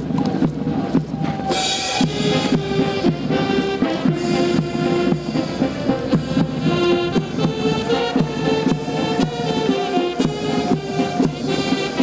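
Military band playing a march: a steady drum beat under a melody of held wind-instrument notes.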